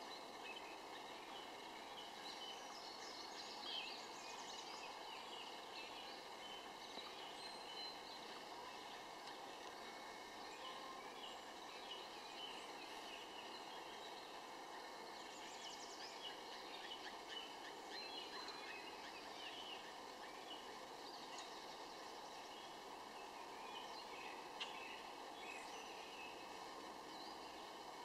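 A chorus of wild birds, many short chirps and calls scattered throughout, over a steady background hiss.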